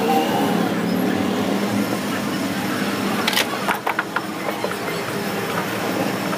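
Steady engine-like hum of a vehicle running nearby, with a few sharp clicks about three and a half seconds in.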